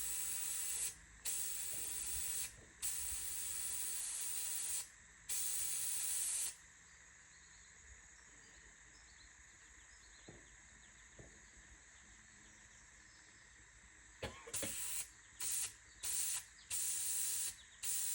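Compressed air hissing in bursts through an air chuck filling a tractor tire whose bead has just seated: four longer blasts of one to two seconds, a pause of several seconds, then a run of short blasts.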